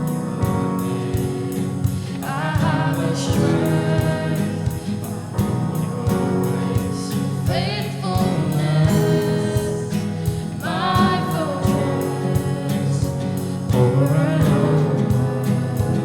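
Live gospel worship music: a band with a steady beat, with sung phrases coming in several times over it.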